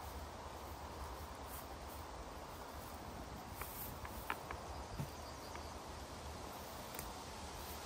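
Forest camp ambience: a steady hiss over a constant low rumble, with a few light clicks or taps about halfway through and once more near the end.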